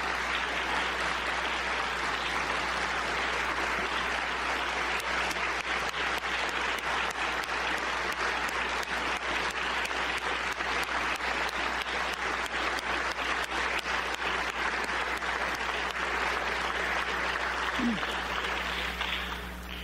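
Congregation applauding steadily, dying away near the end, over a low steady hum.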